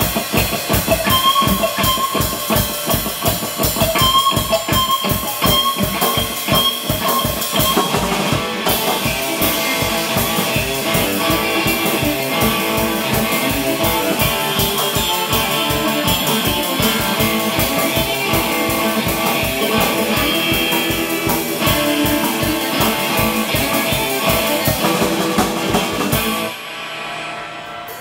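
Surf-style electric guitar riff looping from a looper pedal through a small combo amp, with a drum kit played along to a steady beat. The music stops suddenly about a second and a half before the end, leaving a quieter fading ring.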